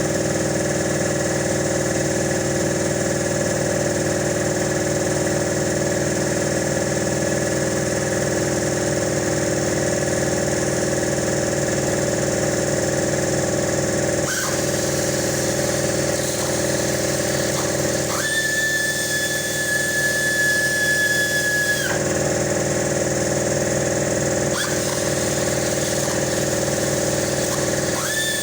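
Small electric power tool, such as a cordless drill or power ratchet, whining steadily in short runs of a few seconds, with brief blips between them, over a steady mechanical hum.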